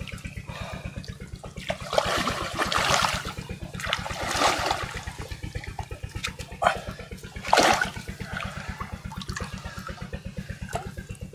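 Water splashing and dripping in loud surges as a gill net is hauled out of a pond with fish caught in it, over a steady, fast low throbbing.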